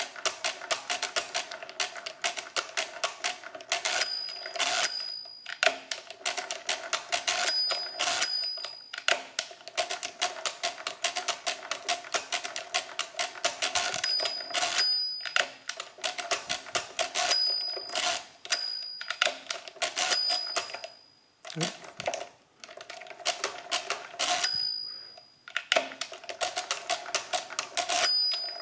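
Original-Odhner model 24 pinwheel calculator being cranked over and over through a long division: rapid clicking and whirring of the crank and pinwheel drum, in runs broken by short pauses as the carriage is shifted. Now and then a brief high ring sounds, the bell that signals the register has underflowed.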